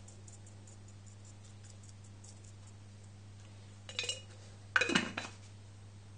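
A spoon clattering and clinking against dishes in two short bursts, about four seconds in and again, louder, about a second later, as it is put down after salting.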